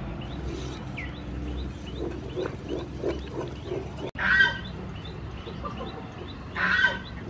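A wooden spoon stirring thick melted palm sugar in an aluminium pot, with soft, regular scraping strokes. Chickens call in the background, loudest twice, about four seconds in and near the end, over a steady run of quick high chirps.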